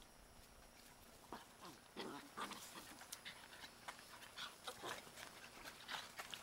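Puppies making short whines and yips, with scuffling, as they start to play-wrestle. The first second or so is quiet, and the noises come irregularly after that.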